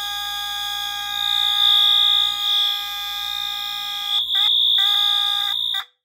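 ADT-branded Vibratone 450D electric fire alarm horn sounding a loud, steady, buzzy tone. About four seconds in it stumbles and its pitch wavers before it steadies again, the finicky behaviour the owner calls trouble with the horn, and then it cuts off suddenly.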